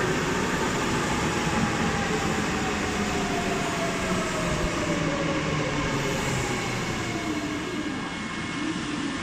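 Tobu 100 series Spacia electric express train running into the platform and braking. Its motor whine falls steadily in pitch over rolling rumble as the train slows towards a stop.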